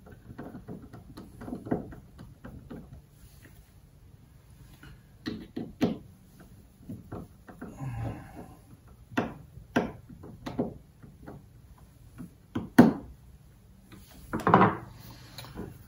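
Scattered small clicks and knocks of a screwdriver working on a 7.5 hp Mercury outboard carburetor on a workbench, with a sharper knock near the end.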